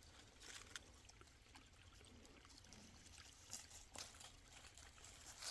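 Near silence, with a faint trickle of a small creek and a few faint clicks.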